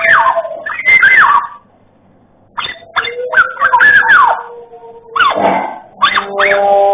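Black-naped oriole (kepodang emas) singing a varied, loud song of sliding whistled notes mixed with harsh, scratchy notes and clicks, in bursts with a short pause about two seconds in.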